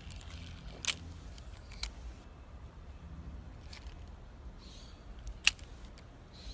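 Sharp clicks from a spinning reel and rod being handled, four spread over several seconds, the loudest near the end.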